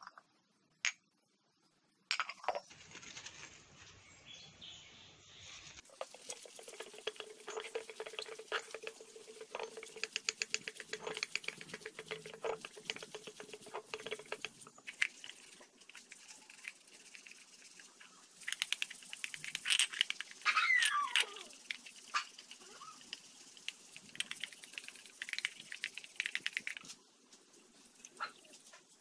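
Wet aluminium motorbike wheel hub and brake plate being scrubbed with a brush and rubbed by hand: rapid scratchy strokes with occasional squeaks.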